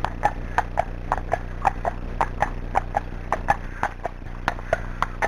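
Friesian horse's hooves striking a wet tarmac lane at a fast trot: a brisk, even clip-clop of about four hoofbeats a second.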